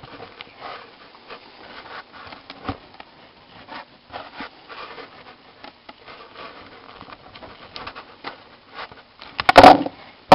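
Faint clicking and rustling of fingers pressing on a plastic chip carrier's springs. Near the end comes a short burst of loud clicks and knocks as the 2732 EPROM chip comes free of the carrier and is set down on the table.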